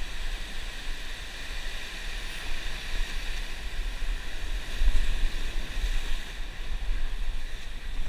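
Ocean surf breaking and washing against the rocks, with wind buffeting the microphone as a low rumble. A surge is louder about five seconds in.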